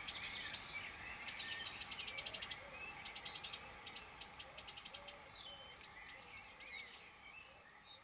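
Small songbirds chirping and trilling, with fast runs of repeated high notes, over a faint steady background hiss.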